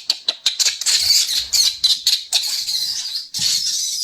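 Rapid high-pitched animal calls, several a second, running together into a continuous chirping stretch in the middle and breaking off briefly near the end.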